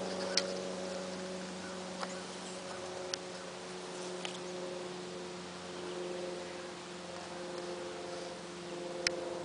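A steady hum of several held tones, with a few faint clicks.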